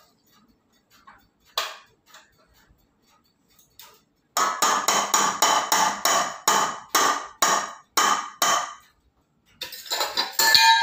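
Detached hand-mixer beaters scraped repeatedly against a stainless steel mixing bowl to clear off the creamed butter-and-sugar mixture: about ten strokes, roughly two a second. Near the end there is a denser metallic clatter as the beaters are set down among metal pots.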